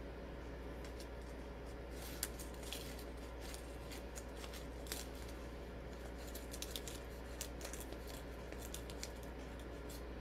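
Sequins being poured from a plastic zip bag into a shaker-card window: scattered light clicks and ticks, few at first and more from about two seconds in.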